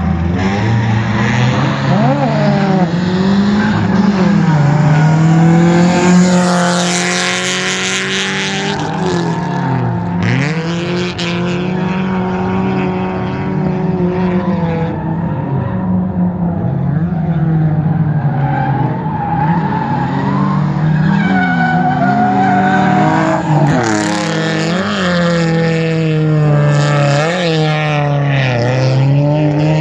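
Drift car's engine revving hard and falling off again and again as it slides around the course, with tyres squealing and skidding on the asphalt. The tyre screech flares loudest about a third of the way in and again near the end.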